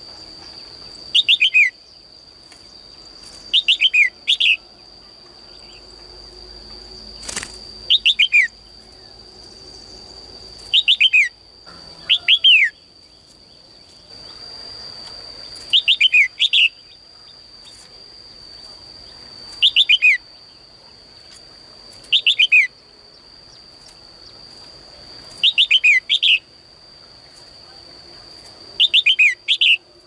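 Female red-whiskered bulbul calling in its cage: short bursts of quick falling chirps, repeated every few seconds, over a steady high-pitched whine. One sharp click about seven seconds in.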